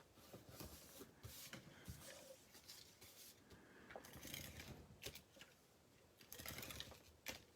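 Faint rustling and light taps of cardstock and paper pieces being handled and set down on a craft table.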